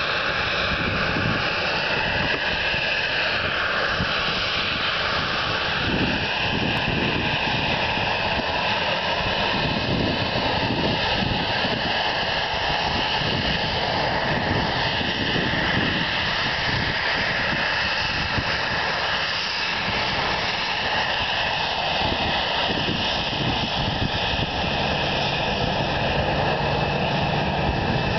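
Boeing 737-800's CFM56 turbofan engines running at taxi power close by: a steady whine, with a few tones that waver in pitch, over a constant rush.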